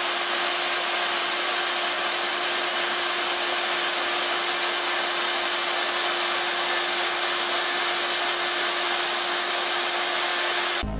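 Hot-air plastic welding gun running: a steady airy hiss with one constant tone beneath it, starting and stopping abruptly.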